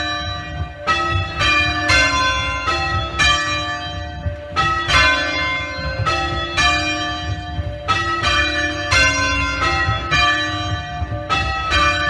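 The ring of three Mears church bells at Fernhurst (tenor 4–2–6, 231 kg, in C) being rung full circle: loud bell strikes following one another in steady rows of three, a short gap between rows, each note ringing on into the next.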